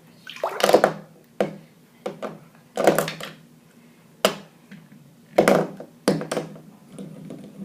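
Irregular knocks and clatters of hard plastic fidget toys being handled and knocked together, about eight in all, the loudest a little under a second in and around three seconds in.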